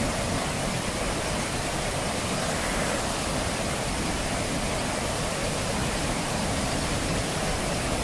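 Ryuzu Falls, a long cascade of white water pouring down a rocky slope, rushing steadily.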